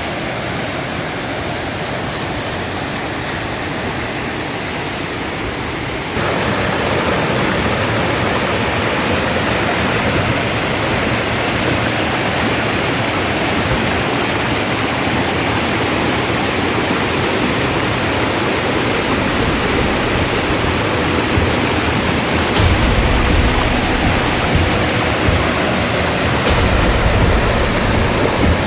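Waterfall rushing, a steady dense wash of falling water that gets louder about six seconds in. A deeper low rumble joins in near the end.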